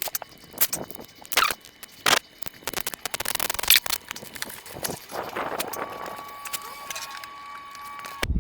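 Hand tools working on car body trim: irregular clicks, knocks and scraping as fixings and plastic clips of a side skirt are worked loose. A faint steady whine sits under the last couple of seconds.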